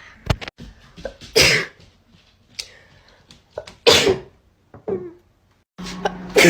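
A person sneezing: loud sneezes about a second and a half in, again about four seconds in, and once more at the very end, with shorter, quieter bursts in between.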